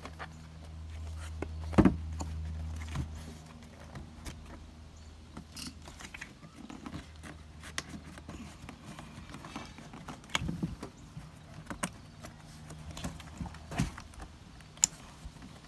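Handling noise as a leather cover is stretched and pressed over a ribbed plastic armrest lid: scattered clicks, taps and rubbing, with a sharp knock about two seconds in. A low hum runs under the first three seconds.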